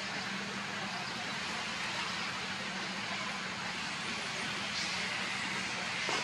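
Steady outdoor background noise with a faint low hum and a slight knock near the end.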